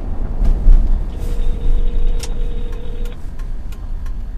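Steady road and engine noise inside a moving vehicle's cabin, with one ring of a telephone ringback tone lasting about two seconds while a call is placed. Light regular ticking follows in the second half.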